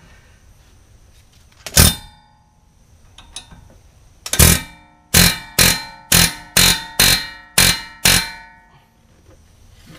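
Sharp metal-on-metal strikes with a ringing tone as a tool bit is driven against the staked collar of a 2006 Honda Civic's front axle nut, unbending the peened metal so the nut can be turned off without damaging the axle. One strike about two seconds in, another just after four seconds, then seven more at about two a second.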